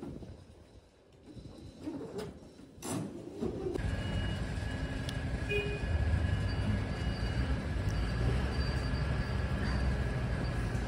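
A vehicle engine running steadily close by on the street, a low rumble with a faint steady whine, starting abruptly about four seconds in. Before it, a quieter stretch with a couple of knocks.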